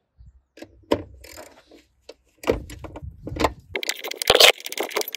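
Hand ratchet with a 10mm socket on a long extension undoing the car battery's hold-down clamp bolt: irregular ratchet clicks and metal-on-metal clatter, getting busier about halfway through and loudest shortly before the end.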